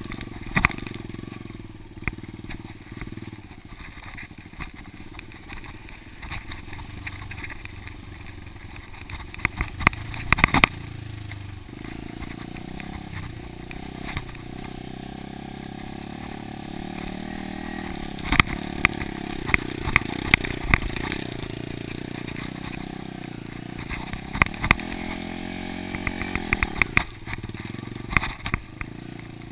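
Dirt bike engine running while the bike is ridden over a rough trail, its pitch rising and falling with the throttle and climbing clearly about 11 seconds in and again near the end. Frequent sharp knocks and clatters come through, the loudest in bunches around 10 seconds and from about 18 to 28 seconds in.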